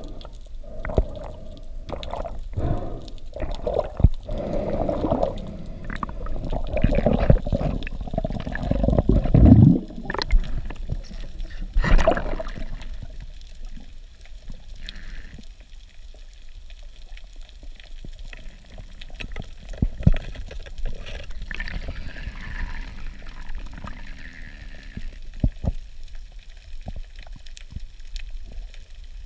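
Underwater sound through a GoPro's waterproof housing: water rushing and bubbling around a swimming diver, with scattered clicks and knocks. It is louder and busier for the first dozen seconds, then quieter.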